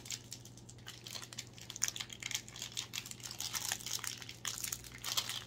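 Crinkly pink wrapper of a Sonho de Valsa chocolate bonbon being handled and unwrapped: irregular crackles with no steady rhythm.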